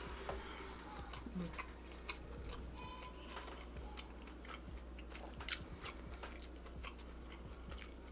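Close-up chewing of a mouthful of sausage: soft wet mouth clicks and smacks, scattered irregularly through.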